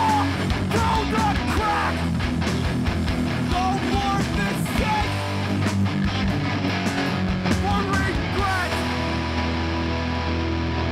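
Live hardcore punk band playing loud: distorted electric guitars, bass and drums. About nine seconds in the drum hits stop and a held chord rings on.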